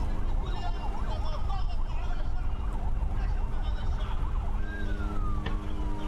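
Emergency vehicle siren yelping rapidly up and down at first, then later one long falling wail, over a steady low rumble and crowd voices. A single sharp crack near the end.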